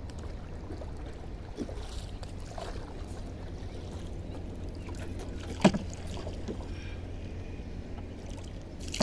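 A long pole being worked over the side of a small wooden canoe, with water sounds, a steady low wind rumble and a few knocks; one sharp knock about five and a half seconds in.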